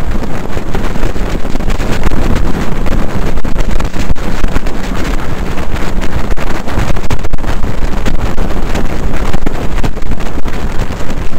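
Wind buffeting the microphone of a camera on a motorcycle riding at highway speed, a steady loud rush over the rumble of the bike.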